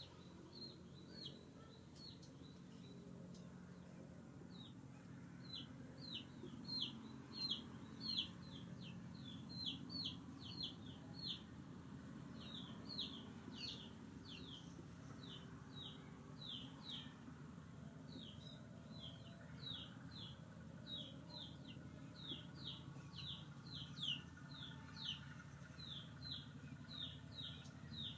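A bird calling over and over in short high peeps, each falling in pitch, about two a second, with a couple of brief pauses. A faint low steady hum lies underneath.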